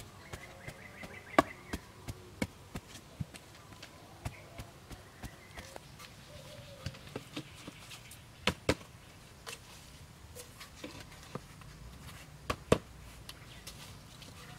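Wooden pole jabbing and tamping the earth around the base of upright log stakes: a run of sharp knocks and thuds, about three a second at first, then sparser knocks of wood as stakes are set, with two louder double knocks near the middle and near the end.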